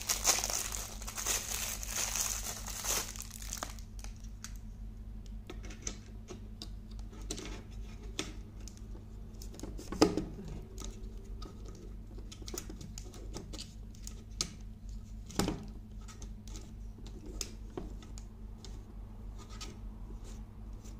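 Plastic packaging crinkling and tearing for the first few seconds, then scattered clicks and knocks as the plastic phone holder is fitted onto the tripod head, the loudest about ten seconds in and again about fifteen seconds in. A steady low hum runs underneath.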